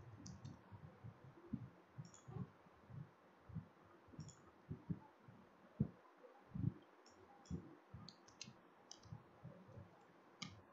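Faint, irregular clicks of a computer keyboard and mouse: scattered keystrokes, with a quick cluster about two-thirds of the way through.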